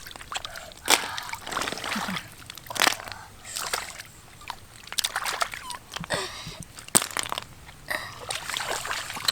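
Water splashing and sloshing in short, irregular bursts, about a dozen over several seconds.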